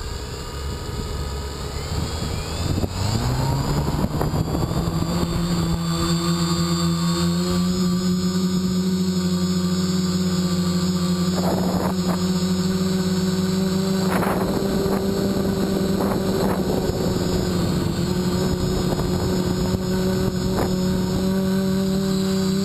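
BlueSkyRC Spider Quad quadcopter's motors and propellers, heard close up from a camera mounted on the craft: they spin up with a rising whine over the first few seconds, then hold a steady buzzing hum in flight, with a few brief surges as the throttle is blipped.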